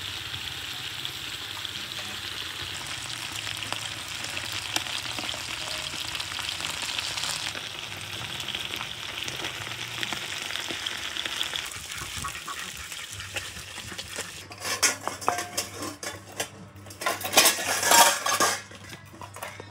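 Small whole fish sizzling steadily in hot oil in an aluminium wok, with a metal spatula scraping as they are turned. About two-thirds of the way in the sizzle drops, and a run of loud clicks and clatter follows, loudest near the end.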